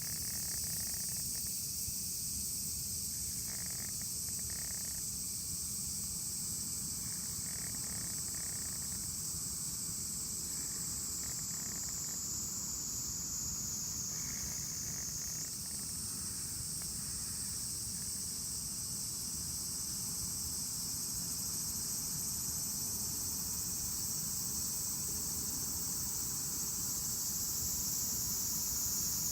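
Cicadas singing in a steady high-pitched chorus, the pitch sliding slowly down and stepping back up about halfway through, over a low rumble.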